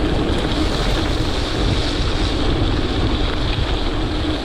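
Steady wind rumble on the microphone of a camera riding on a moving gravel bike, mixed with the noise of tyres on the trail.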